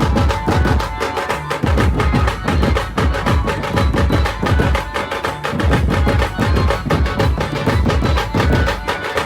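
Loud music with a fast, dense drum beat and heavy bass pulses, played through a large mobile DJ sound system.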